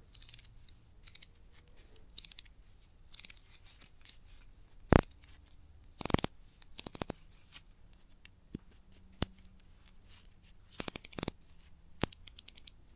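Yellow Jacket ratcheting wrenches being worked back and forth, giving several short bursts of rapid ratchet clicks, with a single sharp metal click about five seconds in.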